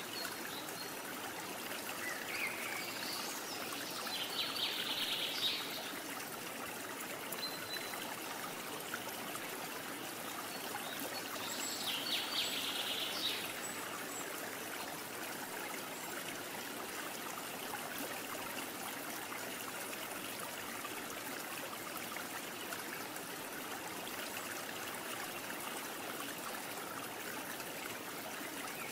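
Steady sound of a running stream, an even rushing trickle of water, with two short bursts of high chirping, about five seconds in and again about thirteen seconds in.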